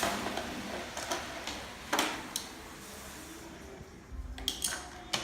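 Plastic magnetic letters and numbers clicking and tapping against a refrigerator door, a few separate knocks and then a quick cluster of clicks near the end.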